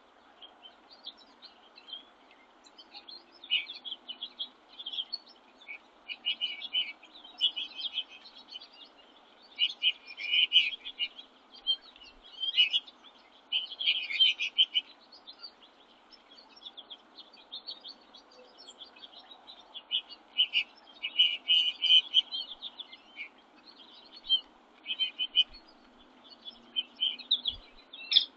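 Songbirds chirping and twittering in quick, busy clusters of high notes that come and go, over a faint background hiss.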